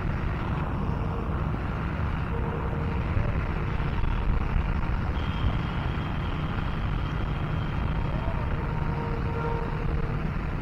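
Steady low rumble of outdoor background noise, with faint thin tones coming and going above it.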